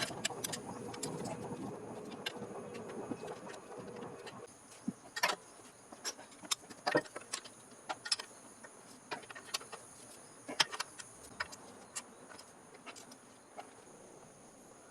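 Scattered sharp clicks and clinks, about a dozen at irregular intervals, after a noisy rumble that fades out about four seconds in.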